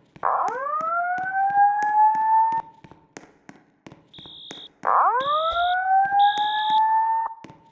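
Building fire alarm voice-evacuation system sounding its whoop evacuation tone twice: each whoop is a rising sweep about two seconds long that climbs quickly, then levels off. Three short high-pitched beeps sound between and over the second whoop.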